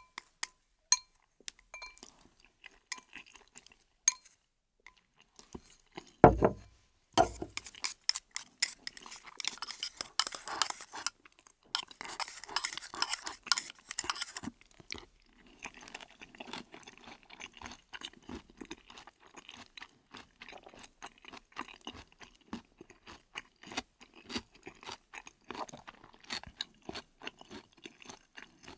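Close-up chewing of instant noodles with mouth clicks and crunches, and a fork clinking on the plate. Two loud dull thumps come about six and seven seconds in.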